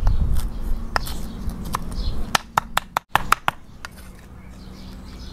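Cleaver chopping blanched phak kan chong stems on a round wooden chopping block: sharp knocks of the blade on the wood, spaced out at first, then quicker and louder through the middle, fading near the end.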